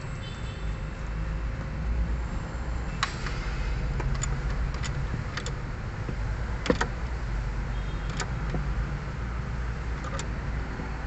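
Steel wrench turning a bolt on a fuel filter bracket: a scattered series of sharp metallic clicks and clinks, about seven in all, the loudest a little past the middle, over a steady low rumble.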